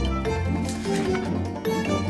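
Background music: an instrumental tune of short melodic notes over a steady bass.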